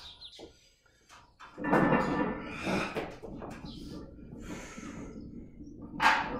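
A powerlifter breathing hard with forceful, noisy exhales while standing under a heavy barbell between back-squat reps. A strong breath comes about two seconds in and a sharp one near the end.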